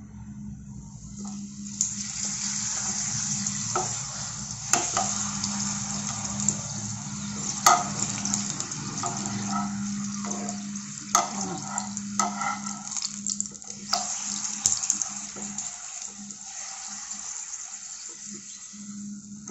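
A papad shallow-frying in hot oil in a pan: a steady sizzle and crackle that builds about two seconds in and eases a little near the end. Sharp metal clicks of the wire tongs against the pan come every few seconds as the papad is turned and pressed, over a low steady hum.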